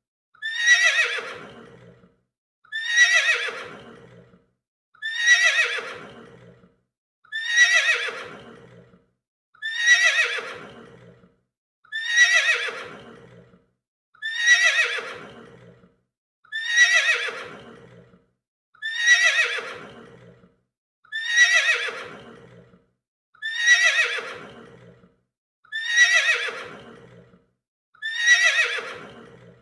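A horse neighing, the same whinny repeated at even spacing about once every two and a quarter seconds; each call starts high and falls away in pitch over about a second and a half.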